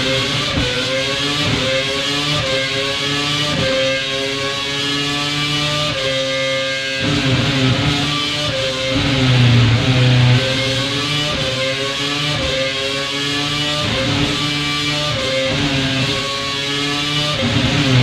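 Renault RS27 2.4-litre Formula 1 V8 running at high revs on a dyno test bench. Its engine speed rises and falls in steps, with a brief dip about seven seconds in.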